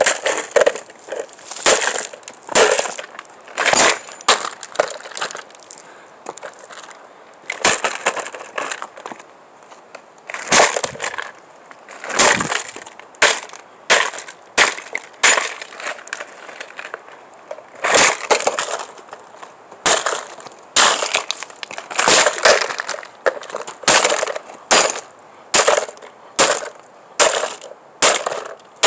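An electric fan with a burned-out motor being smashed apart: repeated hard blows about once a second, with cracking and crunching as it breaks.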